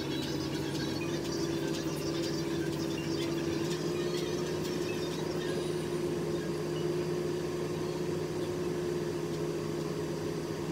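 Steady hum of a running fan motor, holding one pitch throughout.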